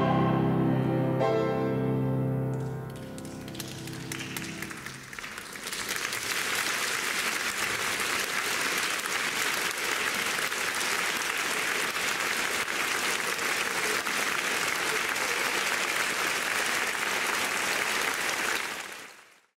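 A choir with piano ends a piece on a final chord that dies away over a couple of seconds. Audience applause then starts and carries on steadily, fading out near the end.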